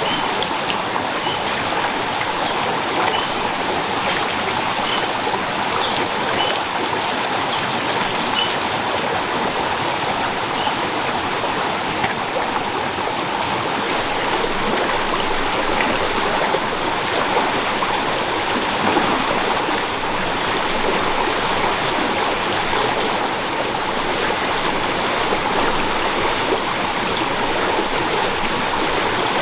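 Shallow stream rushing over rocks: a steady wash of water noise that holds even throughout.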